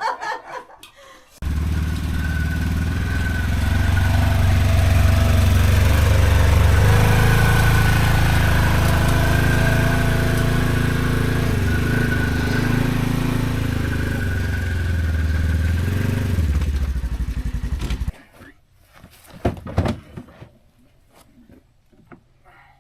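A vehicle engine running steadily, its pitch shifting a little as it drives. It starts and stops abruptly, and a few faint knocks follow.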